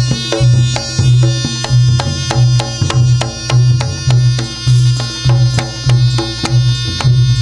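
Reog accompaniment music from drums and struck gongs, playing a fast, driving rhythm with a heavy low beat about twice a second and ringing metal notes above.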